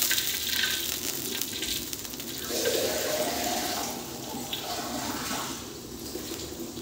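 Hot water bubbling and hissing in an aluminium wok as the liquid churns over the hot pan, dying down over the seconds.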